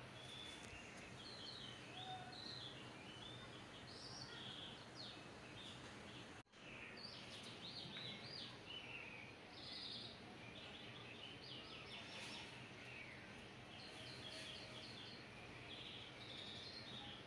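Faint bird chirping: many short, quick chirps and little rising and falling calls over a low steady hum. The sound cuts out for an instant about six seconds in.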